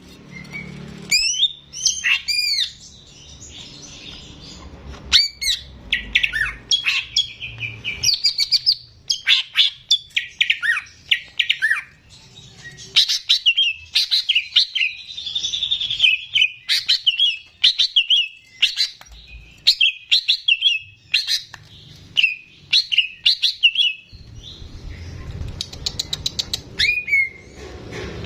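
Cucak ijo (green leafbird) singing in full, continuous song: a rapid, varied string of chirps, whistles and harsh notes, with a fast rattling trill near the end.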